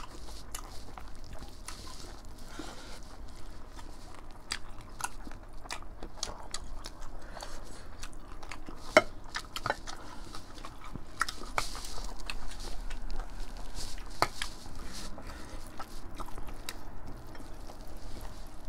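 Two people chewing and biting mouthfuls of rice and mutton curry eaten by hand, with many small wet clicks and occasional crunches. One sharper click about nine seconds in.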